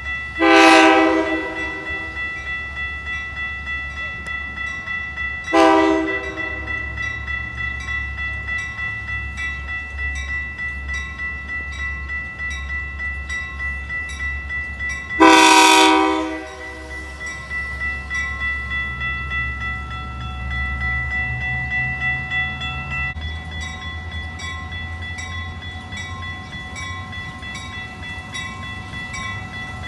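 A commuter train's horn sounds a long blast, a short one, and about ten seconds later another long blast as it nears the grade crossing. Between the blasts the crossing bells ring steadily, about two to three strokes a second, over the low rumble of the passing train.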